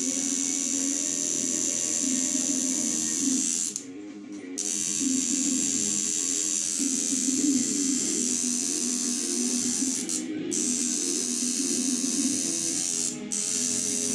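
Electric tattoo machine buzzing steadily while tattooing skin, over background music. The buzz stops for about half a second around four seconds in, and briefly twice more later.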